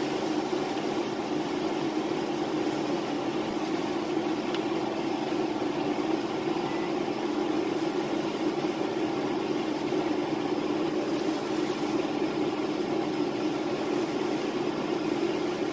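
Beef filling simmering in broth in a cast-iron skillet while a wooden spatula stirs it, over a steady low hum.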